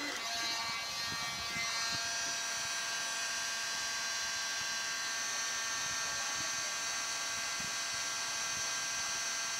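Handheld corded heat gun running with a steady motor-and-fan whine, its tone settling in the first second or two. It is heating the kayak's plastic hull to fill holes left by removed tie-down brackets.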